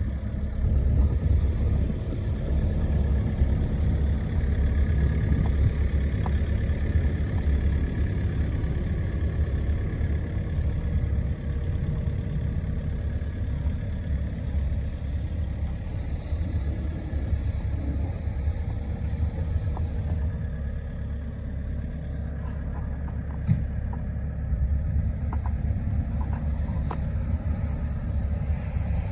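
Volvo ECR88D compact excavator's diesel engine running steadily with a low rumble, and a faint higher whine that comes and goes in the first half.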